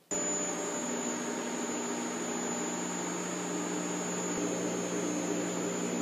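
Steady drone of a sludge-dewatering centrifuge running in its machine room, a low hum with a thin high whine over it. It sets in abruptly and holds level throughout.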